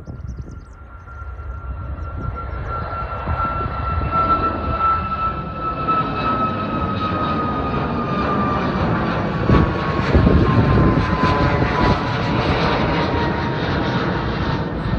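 Boeing 737 MAX 8's CFM LEAP-1B turbofan engines at climb thrust as the jet passes close overhead after takeoff. A jet roar grows louder over the first few seconds and is loudest about ten seconds in, with a high whine that slowly falls in pitch as the plane goes by.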